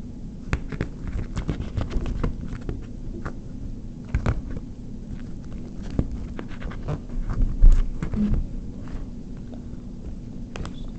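Close handling noise: irregular light clicks and taps from small objects being handled, with a couple of louder low thumps about four seconds and seven and a half seconds in.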